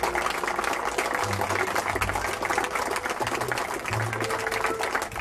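Audience applauding, with music playing underneath.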